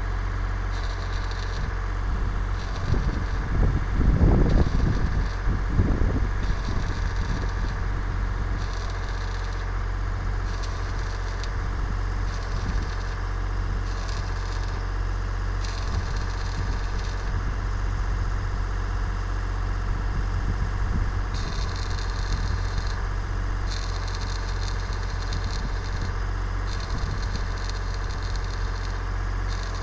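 An engine running steadily under stick welding on a water pipe, with stretches of high arc crackle that start and stop every second or two. Some heavier irregular rumbling about four to six seconds in.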